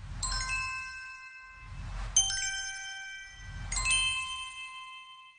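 Animated-logo intro sound effect: three low swelling whooshes, each topped by a cluster of bright ringing chime tones that hang and fade. The loudest chime strikes about two seconds in, and the last one rings out near the end.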